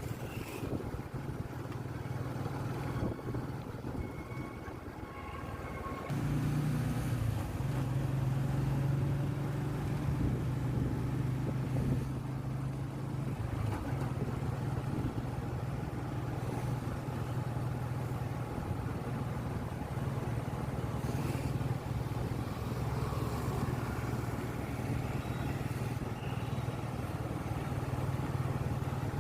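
Motor vehicle running along a city road: a steady engine hum with road and wind noise. About six seconds in, the hum grows louder and holds steady.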